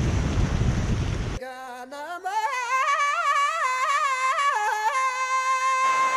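Rushing whitewater and wind buffeting the kayak camera's microphone, cut off abruptly about a second in by music: a single melody line, sung or played, sliding and ornamented in pitch, with a soft hiss coming in beneath it near the end.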